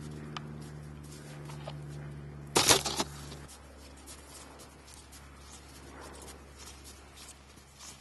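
A snowboard lands with a loud scraping thud in the snow close by, about two and a half seconds in. Then footsteps crunch through wet, slushy snow, coming closer. A steady low hum runs underneath and stops shortly after the impact.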